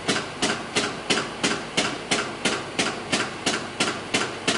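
Steady mechanical clicking, sharp knocks about three times a second at an even pace.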